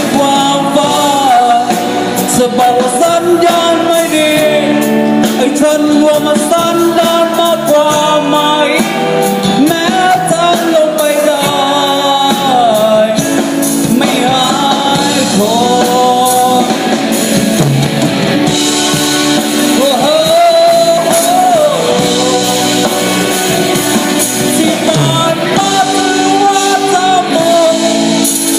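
Band music: a song with a lead melody that slides and bends between notes over full band accompaniment, loud and continuous.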